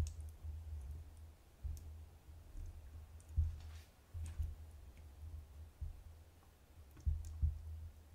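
Silicone spatula stirring egg yolks into thick condensed milk in a saucepan: irregular soft clicks and low knocks of the spatula against the pan, with a few sharper taps.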